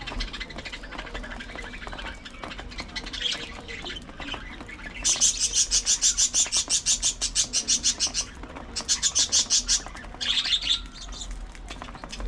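Budgerigars chirping, then a loud, rapid chattering trill of high notes at about ten a second starting about five seconds in, which breaks off briefly and resumes for a second before ending in a few more chirps.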